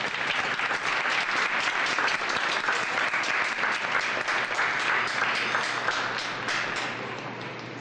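Audience applauding with dense clapping that thins out and fades near the end.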